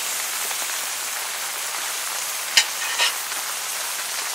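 Gopchang sizzling on a cast-iron grill pan, a steady high hiss. Metal tongs click against the pan a few times; the sharpest click comes about two and a half seconds in, followed by another half a second later.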